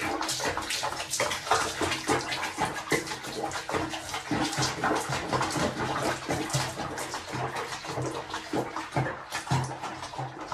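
Water splashing and sloshing in a basin as a cat moves about in it: many small splashes one after another.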